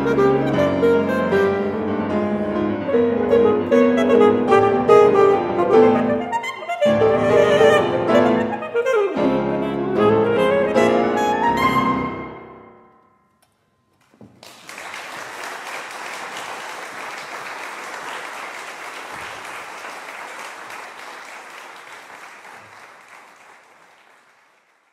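Saxophone and grand piano playing a fast classical duo passage that ends about twelve seconds in, the final chord dying away. After a brief silence an audience applauds, fading out near the end.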